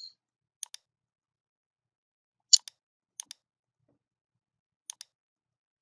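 Computer mouse clicking: four quick double clicks spread over a few seconds, the loudest about two and a half seconds in.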